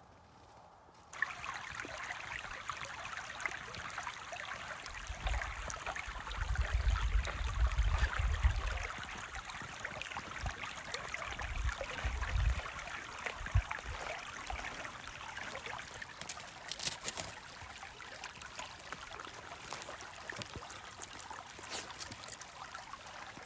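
Shallow creek running over stones, a steady rushing trickle that starts about a second in. Low rumbles come and go from about five to nine seconds in and again near twelve seconds, the loudest sounds here.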